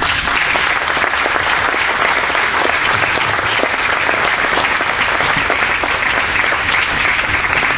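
Audience and panel applauding, many hands clapping; it starts suddenly and holds steady.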